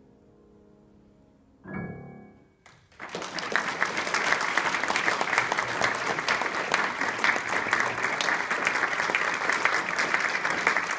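A grand piano's final chord rings out softly and fades, with one last soft chord struck just under two seconds in. About three seconds in, the audience breaks into applause, which runs on at full strength.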